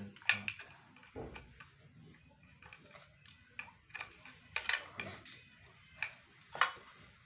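Irregular light clicks and taps, about a dozen, from hand tools and parts being handled on a washing machine under repair.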